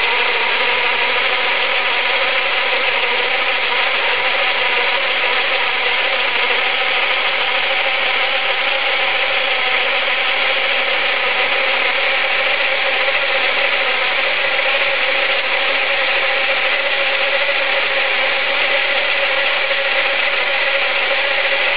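Brushless motor and four-wheel-drive gear train of a Turnigy 4WD Brushless Beatle 1:16 RC car running at one steady speed, its wheels spinning freely off the ground: a no-load break-in run. A steady whine that holds the same pitch throughout.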